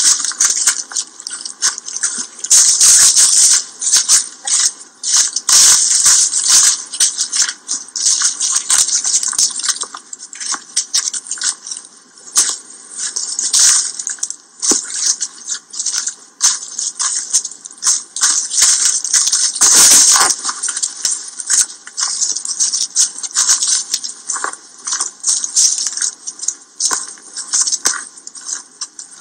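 Footsteps crunching and rustling through dry fallen leaves, a dense irregular crackle that keeps up throughout.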